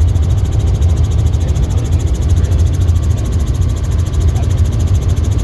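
Helicopter running steadily in flight: a deep, even drone with a fast regular rotor beat.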